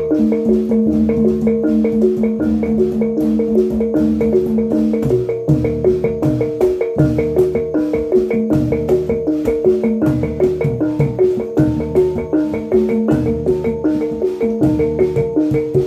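Live gamelan for reog/jatilan dance: bronze kettle gongs and metallophones playing a fast, repeating pattern over an even, driving beat, with low gong notes changing about once a second.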